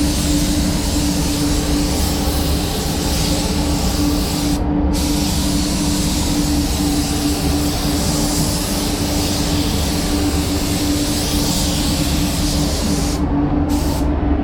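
Compressed-air paint spray gun spraying a car body panel in a steady hiss. The hiss breaks off briefly about five seconds in and again near the end, as the trigger is released between passes.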